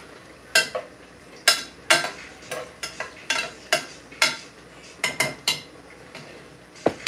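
A spoon stirring in a stainless cooking pot, making a string of sharp, irregular clinks and knocks against the metal.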